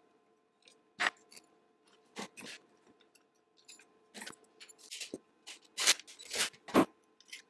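Irregular metal clicks and clunks from hands working the spot welder and its newly lengthened lever handle. They are sparse at first and come faster and louder over the last few seconds.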